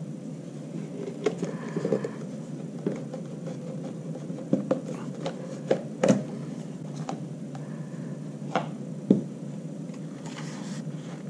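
Scattered plastic clicks and knocks as the parts of a Dyson V6 cyclone assembly are rocked loose and handled, the sharpest about 6 and 9 seconds in, over a steady background hiss.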